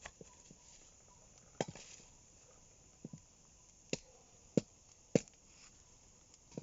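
Firewood being handled to lay a campfire: a string of sharp, irregular wooden knocks and cracks, about a dozen, the loudest in the middle seconds.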